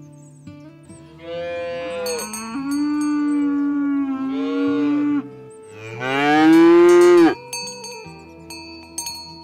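Cattle mooing twice: a long call of about four seconds that shifts in pitch, then a shorter, louder call rising in pitch about six seconds in.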